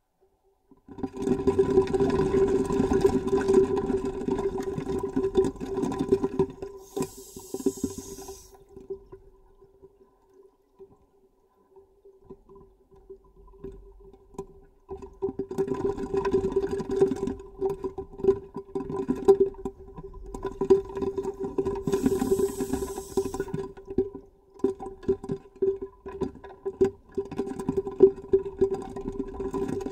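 Scuba regulator breathing heard underwater: long gurgling rushes of exhaled bubbles, broken twice by a short hiss of inhalation, about a quarter of the way in and again about three-quarters through. A steady low hum runs underneath.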